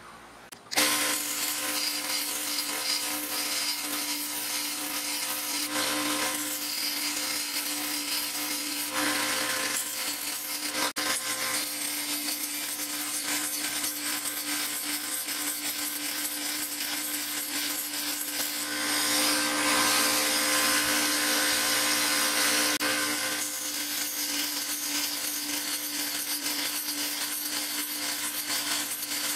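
Homemade mini belt sander driven by a repurposed 1/2 hp, 3800 rpm water pump motor, grinding a small steel workpiece against its 20 mm sanding belt. A steady motor hum runs under a grinding hiss, starting abruptly about a second in, and the grinding grows louder about two-thirds of the way through.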